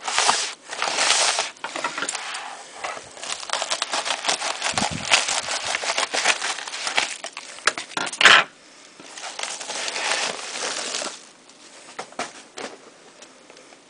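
Plastic bubble-mailer envelope crinkling and crackling as it is handled and cut open with scissors, with one sharp, loud rustle about eight seconds in. After that it gives way to softer, quieter rustling.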